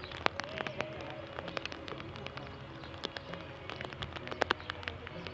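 Light rain: scattered drops tapping irregularly close by, over a steady low hum.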